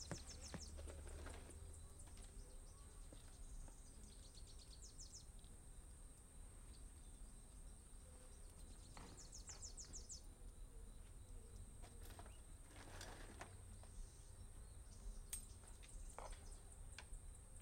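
Faint outdoor ambience: a steady high-pitched whine runs throughout, and birds chirp in two short rapid trills, about four seconds in and again about nine seconds in, with a few faint knocks.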